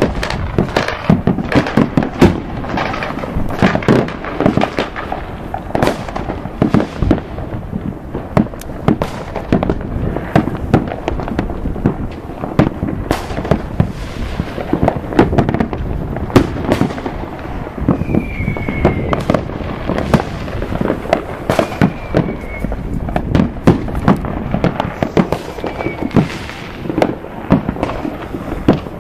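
Dense, continuous barrage of fireworks and firecrackers: sharp bangs and pops several times a second throughout, with a few short falling whistles in the second half.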